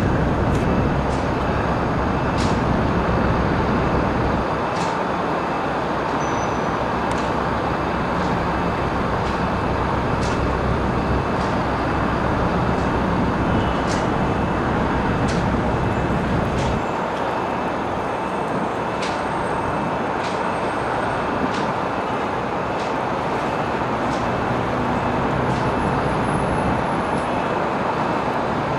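Steady city street traffic noise, a continuous hum of passing road vehicles, with low rumble easing about 5 seconds in and again about 17 seconds in. Scattered sharp clicks sound over it.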